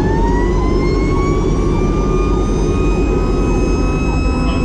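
Fire truck siren winding up, its pitch rising over about two seconds and then holding at a high steady tone. A second siren sweeps quickly and faintly underneath, over the truck's heavy engine and road rumble.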